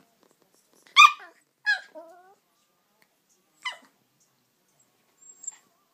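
Dogs play-fighting: a Staffordshire bull terrier puppy and an adult dog give three short high yips. The first, about a second in, is the loudest. The second trails off into a brief falling whine.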